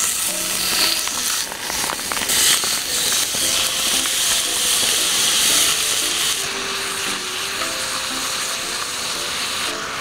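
Marinated pork hitting a preheated skillet and sizzling hard, loudest for the first six seconds or so and then settling to a steadier fry.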